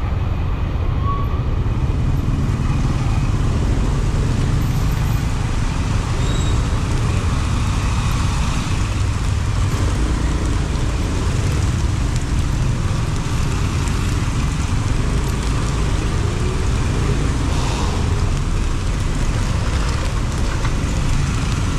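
Steady city traffic heard from a moving motorbike: a constant low rumble of engines and road noise without pauses or standout events.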